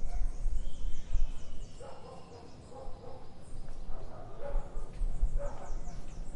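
Garden ambience of small birds chirping with quick high chirps, and a dog barking in the distance in a few bursts, over a steady low background rumble.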